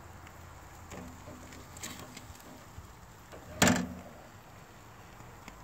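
Plastic spatula scraping and clicking against a metal grill grate while lifting grilled salmon off its skin, with one sharp knock about three and a half seconds in.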